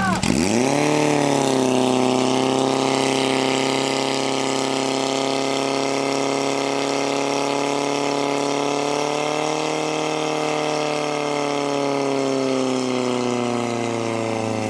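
Portable fire pump's engine dips sharply as the pump takes up the load, then revs up over about two seconds and runs steadily at high revs, pumping water out through the attack hose lines. The revs sag slightly near the end.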